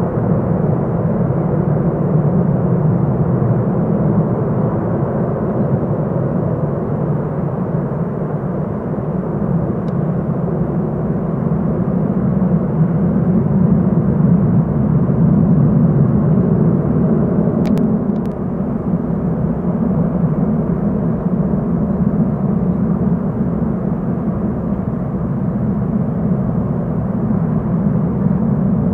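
Xian Y-20A Kunpeng's four D-30KP-2 turbofan engines running steadily, a loud even jet rumble with a faint hum, neither rising nor falling, as at taxi power rather than a takeoff run. A brief faint click sounds about two thirds of the way in.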